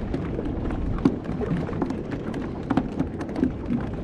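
Steady wind rumble on the microphone and water lapping around a small boat at sea, with scattered small clicks and splashes.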